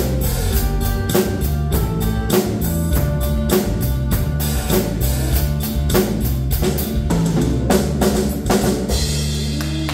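Drum kit played live with a steady beat along to a backing track of a pop song with guitar and bass. About nine seconds in the drumming stops and the song's final chord is held and begins to fade.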